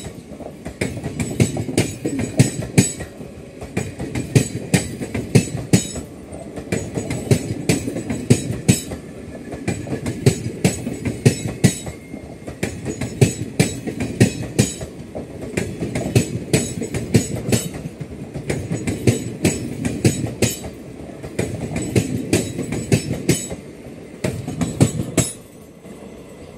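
ICF passenger coaches passing, their wheels clattering over the rail joints in a steady run of clickety-clack beats over a low rumble. The clatter drops away sharply near the end as the last coach goes by.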